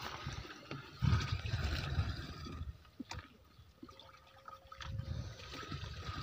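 Muddy water sloshing and gurgling as a plastic water pot is dipped into a shallow field channel and filled, with a few light knocks of plastic. Near the end, water is poured from a small bucket into the pot.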